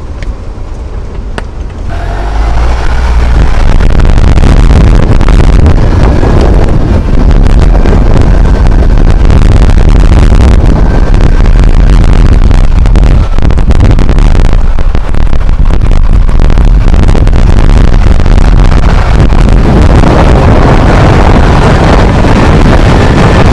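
Car driving along a rough, narrow road, heard with the microphone held out of the window: a loud, steady rush of wind and tyre noise that jumps up about two seconds in.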